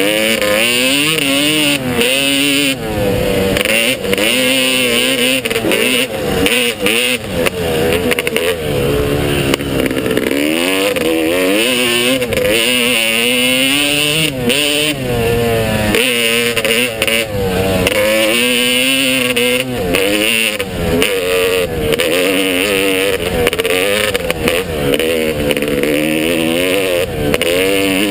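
Motocross bike engine revving hard and easing off again and again, its pitch climbing and dropping every second or two with shifts and throttle changes as the bike is ridden.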